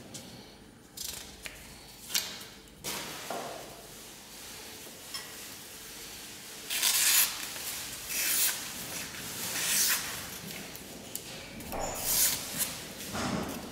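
Freshly sharpened hand-plane iron slicing through a sheet of paper to test its edge: five or six short, crisp paper swishes in the second half. Before them there is a sharp click and some scraping as the steel iron is picked up off the stone slab.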